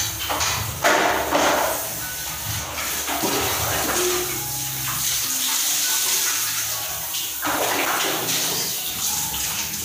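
Water poured from a plastic dipper over a child's head and body, splashing down onto the floor and into a basin, in several pours with sudden loud starts, one about a second in and another near the end.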